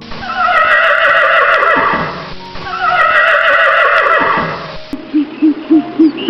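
Horse whinnying twice: two long, wavering neighs that fall in pitch, each about two seconds long. Near the end comes a quick run of low, evenly spaced pulses.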